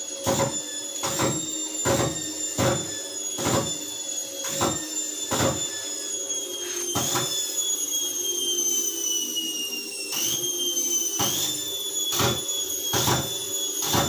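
IFB front-load washing machine's motor running with a high whine that slowly falls in pitch and jumps back up about ten seconds in, broken by sharp snaps roughly once a second. The snaps are arcing from the shorted, damaged motor.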